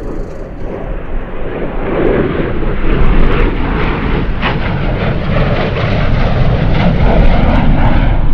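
Airplane engine running loud and steady, a dense rumble with no clear pitch.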